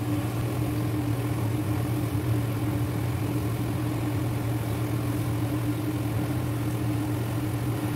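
Cauliflower pakoras in gram-flour batter deep-frying in hot oil, sizzling steadily over a constant low hum.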